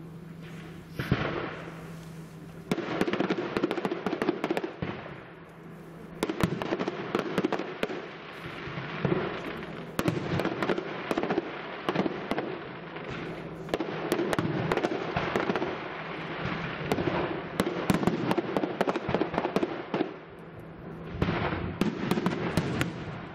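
Professional fireworks display: aerial shells bursting in quick succession, a dense stream of sharp cracks and bangs coming in several waves with short lulls between them.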